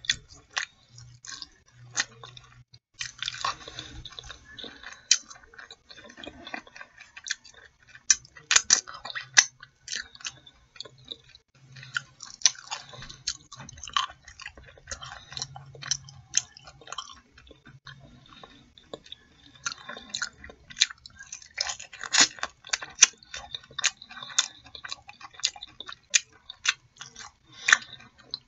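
Close-miked eating sounds of a person chewing and biting chicken coated in mumbo sauce: many irregular sharp mouth smacks and clicks.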